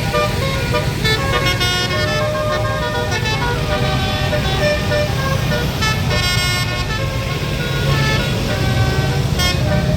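A bus's basuri telolet musical horn playing a melody, its notes stepping from one pitch to the next, over the low running of the bus engine.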